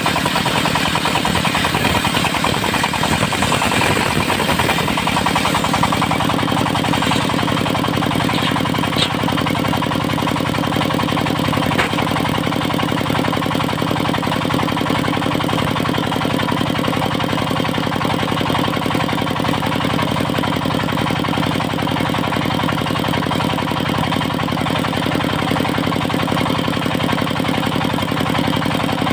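Engine of a mobile circular sawmill running steadily, with an even rapid firing rhythm. It is rougher with more hiss for the first few seconds, then settles to a steady run.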